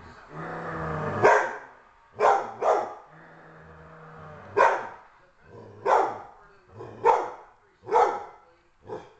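Catahoula Leopard Dog alarm-barking at a strange object: about eight sharp barks, two in quick succession about two seconds in, with low growls rising into the first bark and again in the gap before the fourth.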